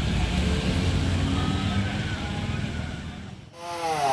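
Street noise with a vehicle engine running, a steady low rumble with faint voices in it; it cuts off sharply about three and a half seconds in, and a voice follows.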